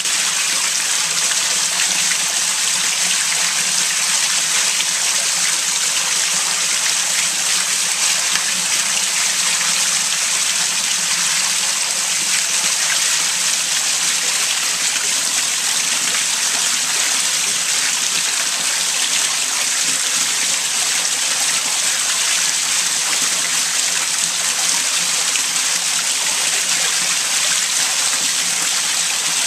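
Sewage welling up and churning in a basement toilet bowl, a steady rush of water: the sewer line is backing up, overloaded by heavy rain.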